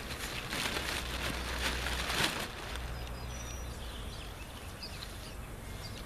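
Bare feet treading a wet clay and sand mix on a plastic tarp: crinkling and rustling of the tarp with the gritty mix, busiest in the first two and a half seconds, then quieter.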